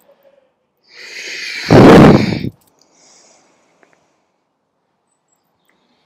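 A loud exhale rushing onto the microphone, building from about a second in and cutting off sharply a moment later, with a deep rumble at its peak.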